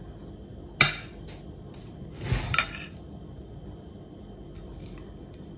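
A metal spoon clinks sharply against a glass plate a little under a second in, then scrapes across it and clinks again about halfway through, as it turns balls in desiccated coconut.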